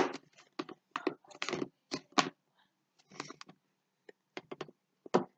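Snap-on lid of a plastic food storage container being pressed down around the rim by hand: a string of irregular short clicks and snaps as the lid seats and seals.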